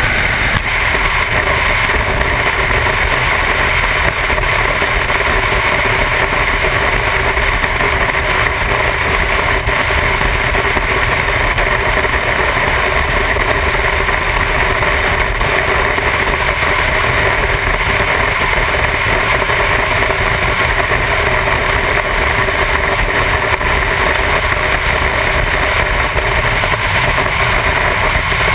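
Motorcycle cruising at a steady highway speed, heard from a camera mounted on the bike: an unbroken mix of engine noise and wind rushing past the microphone, with no change in speed.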